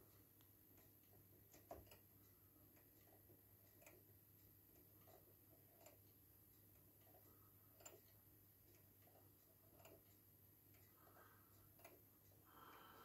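Scott notched-wheel electric pendulum clock ticking faintly, the pawls on the pendulum rod clicking against the notched wheel and the motion-work ratchet. A sharper click comes about every two seconds among the smaller ticks.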